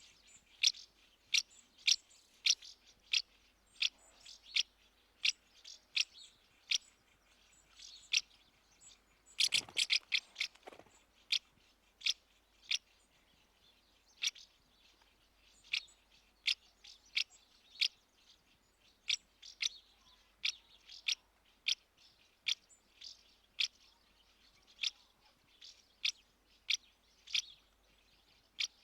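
House martins calling: short, sharp chirps repeated about twice a second, with a brief dense flurry of calls and a lower rustle about ten seconds in.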